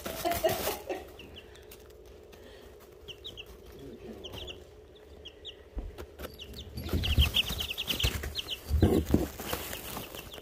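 Young chicks peeping in short, high chirps, sparse at first and then in a quick run of peeps in the second half. A few dull knocks and bumps right at the microphone, the loudest sounds, come as chicks jostle against the phone.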